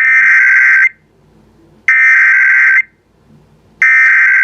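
Emergency Alert System SAME header: three identical warbling data bursts of just under a second each, about a second apart. They open an EAS message, here the repeat of a severe thunderstorm warning.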